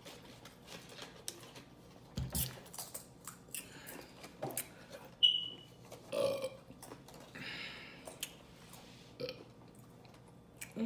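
A woman burping, with a deep burp about two seconds in and another about six seconds in, amid wet mouth clicks and smacking from eating. A short high squeak comes just before the second burp.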